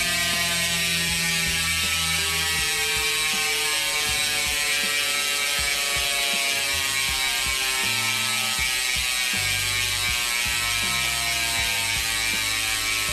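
DT Swiss 180 rear hub's ratchet freehub buzzing as the wheel coasts, a continuous rapid clicking whose pitch slowly falls as the wheel slows.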